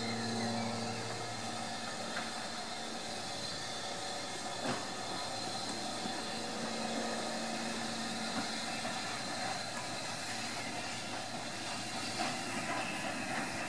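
Steam locomotive at a station platform, letting off a steady hiss of steam, with a few sharp clanks from the train.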